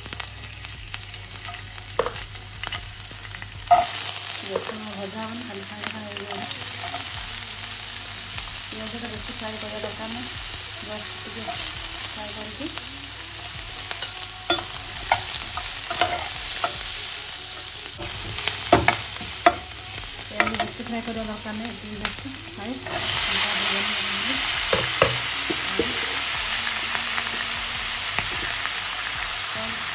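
Chopped green chillies, onions and ridge gourd frying and sizzling in hot oil in a nonstick pan, stirred with a steel spatula that scrapes and clicks against the pan. The sizzle steps up louder about four seconds in and again near 23 seconds, as more vegetables go into the oil.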